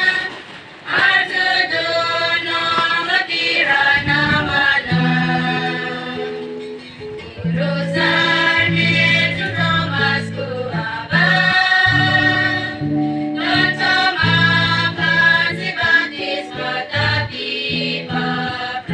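Choir singing in parts, in long held phrases with short breaks between them.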